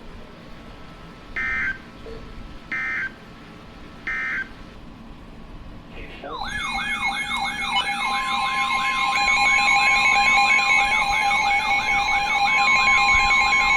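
Emergency Alert System signalling: three short bursts of screechy digital data tones (the SAME code) about a second and a half apart. Then, about six seconds in, a loud wailing siren-like alert tone that sweeps up and down about twice a second over steady tones, with a further steady tone joining about two seconds later, as the next weather warning begins.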